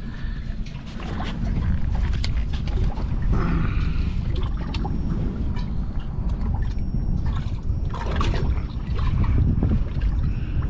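Wind buffeting the microphone in gusts, with scattered small clicks and knocks over it.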